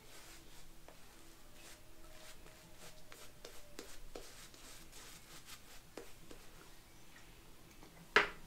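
Shaving gear being handled on a hard surface: faint light clicks and scrapes, then one sharp click near the end as something is set down.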